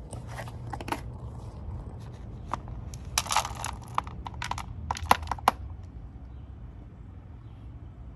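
Cat food being combined by hand: a run of sharp clicks and crunching rustles as food and its containers are handled, densest about three seconds in, with a few louder clicks around five seconds.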